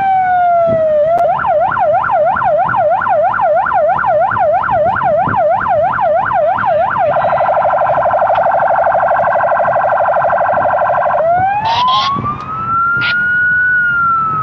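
Police patrol car's electronic siren cycling through its tones: the end of a slow falling wail, then a fast yelp of about four sweeps a second, then a very rapid warble, and near the end a slow wail rising and beginning to fall. A few brief sharp blips sound over the wail near the end.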